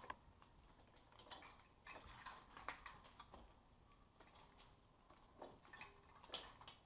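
Near silence with faint, scattered clicks and light rattles: an engine wiring harness and its plastic connectors being handled and laid over the engine.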